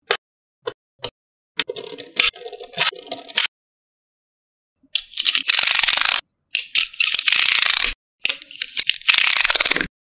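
Small magnetic balls clicking and snapping together: a few single clicks, a stretch of irregular clattering, then three long bouts of dense rattling from about five seconds in, as a heap of balls is shuffled and rolled against one another.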